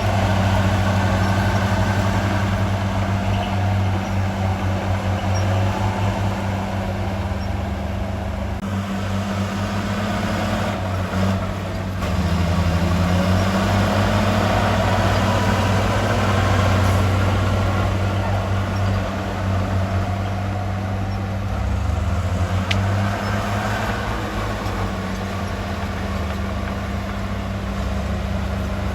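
Large diesel engine of heavy earthmoving machinery running steadily, its pitch sagging briefly twice as it takes load.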